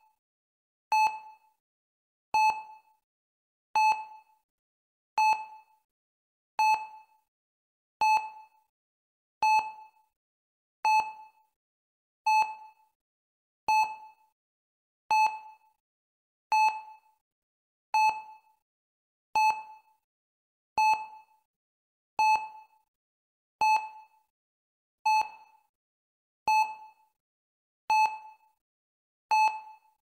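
Heart rate monitor beeping steadily: one short beep about every one and a half seconds, each beep marking a heartbeat at a steady pulse.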